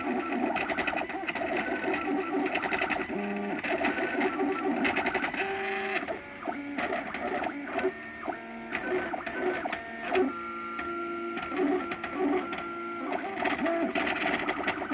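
MakerBot Thing-O-Matic FDM 3D printer running. Its stepper motors whine in steady tones that jump to new pitches as the print head changes speed and direction, with light clicks between moves.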